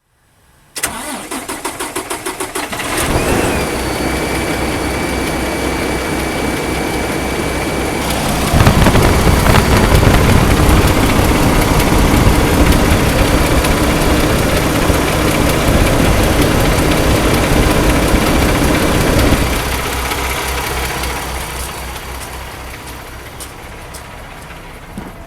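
PACCAR MX13 diesel engine in a Kenworth T680 cranking in quick even pulses for about two seconds, then catching and running steadily. It runs louder from about eight seconds in and settles back down after about nineteen seconds.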